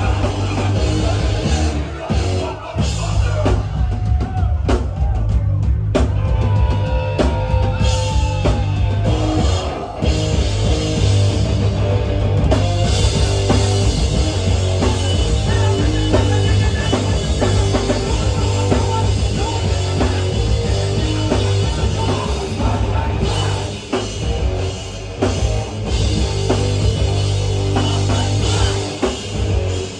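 Live hardcore punk band playing loud and fast, with the drum kit prominent, heard through the club's PA.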